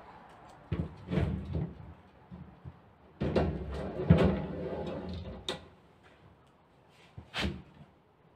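Knocks and scraping as a round wire-mesh bee cassette is slid into a plywood heat chamber, followed about two seconds later by a single knock as the chamber's round wooden hatch is shut.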